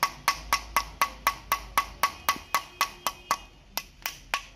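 Small hammer tapping lightly on the aluminium valve block of a Yamaha R15's ABS hydraulic unit, about four taps a second, each with a short metallic ring, with a brief pause near the end before a few more taps. The tapping is meant to free the locked valve in the front brake circuit after soaking it with WD-40.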